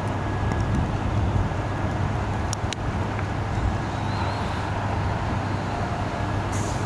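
Steady low rumble of vehicle traffic, with a couple of faint clicks about two and a half seconds in.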